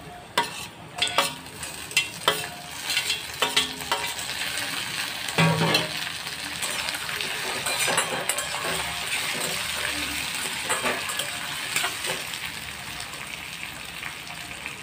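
Chopped tomatoes frying in hot oil in a kadhai as a metal spatula stirs them. Over the first several seconds the spatula scrapes and clinks sharply against the pan, then a steady sizzle carries on.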